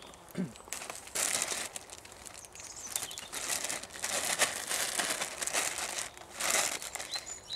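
Clear plastic bag crinkling in irregular bursts as handfuls of pine needles are picked and stuffed into it.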